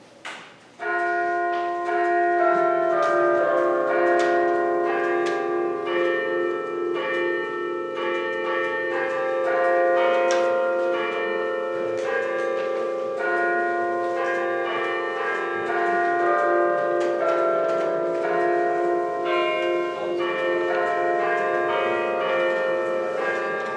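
Church bells ringing, starting about a second in: strokes of different pitches about once a second, each note ringing on under the next.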